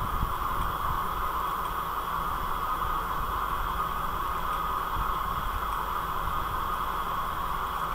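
Steady background hiss with a low rumble, unchanged throughout: the recording's microphone noise and room tone, with no distinct events.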